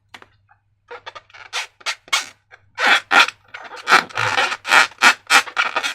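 Slime being squished and worked by hand: a run of short, irregular scraping, sticky sounds, sparse at first and coming closer together from about three seconds in.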